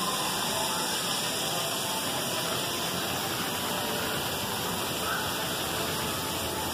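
A steady, even rushing noise that keeps the same loudness throughout, with no clear pitch or rhythm.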